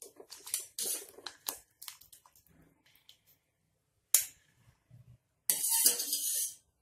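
Wire spider strainer clinking and scraping against a steel pot as parboiled potato cubes are scooped from the water and tipped into a glass bowl. There is a sharp knock about four seconds in and a second of rattling and splashing near the end.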